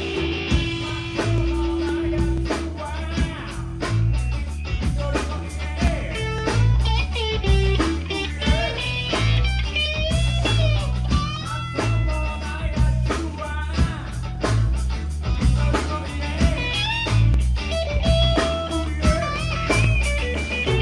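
Live rock band playing, with electric guitar leading over bass and drums; the guitar line bends and glides in pitch in the middle stretch.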